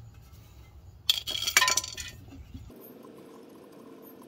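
Metal-on-metal clinking and scraping as a pry tool works the steel rear differential cover loose. A quick cluster of sharp clinks comes about a second in, with a brief ring at its end.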